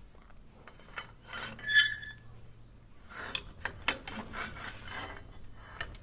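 Steel sliding bolt latch on a metal chain-link gate scraping as it is worked, with one loud ringing metallic clink about two seconds in, then sharp clicks and scrapes between three and five seconds in.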